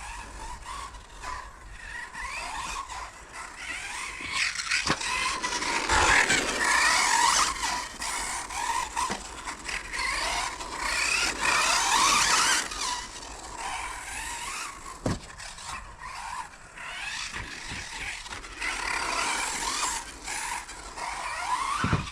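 Brushless electric motor of an RC truggy whining up and down with the throttle, tyres scrubbing on a carpet track, with a few sharp knocks.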